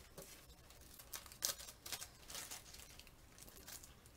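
Clear plastic zip-top bags crinkling and rustling as they are handled, in scattered faint bursts, the loudest about a second and a half in.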